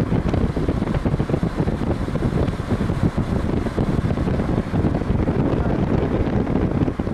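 Steady low rumble of a moving diesel car on smooth asphalt: road and wind noise, with wind buffeting the microphone.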